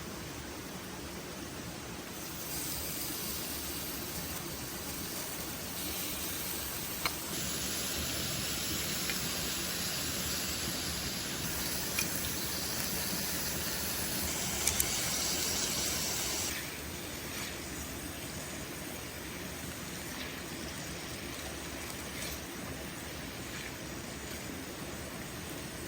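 Food sizzling in a pan over a campfire, a steady hiss that grows louder and brighter a couple of seconds in and drops back about two-thirds of the way through, with a few faint clicks.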